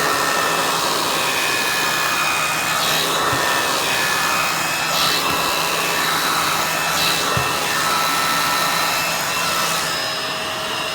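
Bissell MultiClean Allergen Pet upright vacuum running steadily, drawing through its hose to the pet-hair brush tool, with a few brief swishes as the tool is worked over a step.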